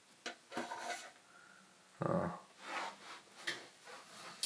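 A small circuit-board display module with a bundle of jumper wires being handled and turned over on a wooden desk: rubbing and light scraping with a few small clicks, and a louder dull bump about two seconds in.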